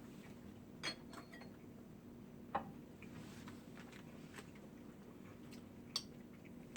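Eating utensils clinking against dishes during a meal: three sharp taps, about a second in, midway and near the end, with smaller ticks in between.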